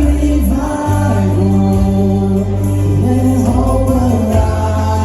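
Live gospel worship song: a band with held bass and keyboard notes under choir voices singing long, sustained notes.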